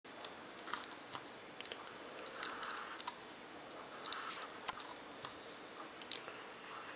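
Thick black felt-tip marker drawing strokes on paper: short scratchy rubs a few times, with scattered small clicks and ticks between them.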